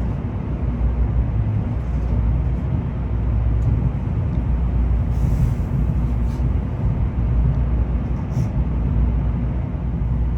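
Shinkansen bullet train running, heard inside the passenger cabin: a steady low rumble with a faint hum. A brief hiss comes about five seconds in.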